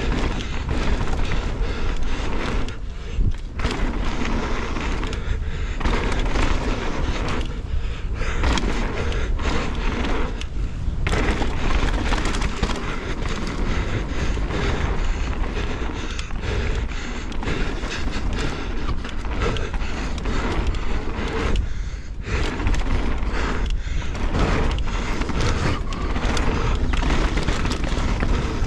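Mountain bike ridden fast down a dirt and gravel trail, heard from a bike-mounted action camera: a constant rumble of tyres on the ground and rattle of the bike and suspension, with wind on the microphone. The noise dips briefly several times and comes back with thuds.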